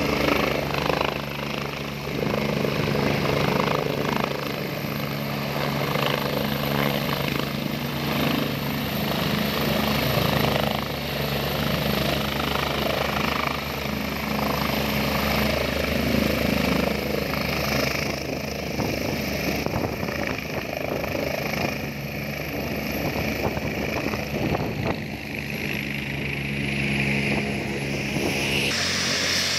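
Helicopter rotor and turbine engines running steadily as it hovers low, sets down on a grass field and stays on the ground with rotor turning. The sound changes abruptly just before the end.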